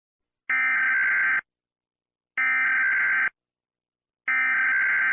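Three identical electronic alert beeps, each just under a second long and about two seconds apart: a steady, buzzy tone of several pitches sounding together, the attention signal of a mock emergency alarm.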